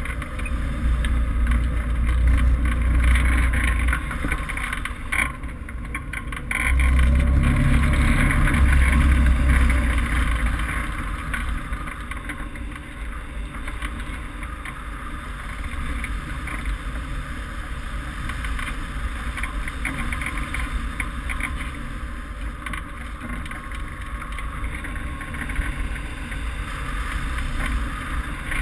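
Rushing wind over a wing-mounted camera's microphone on a hang glider in flight: a steady low rumble and hiss, with louder buffeting near the start and again for a few seconds about a quarter of the way in.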